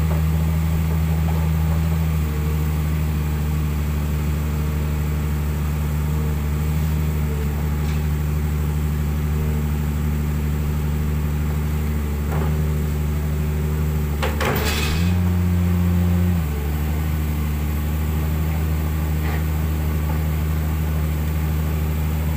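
Diesel engines of hydraulic excavators (a Komatsu and a Kobelco 200) running steadily. About fifteen seconds in there is a sharp knock, then the engine speeds up for a couple of seconds under hydraulic load and settles back.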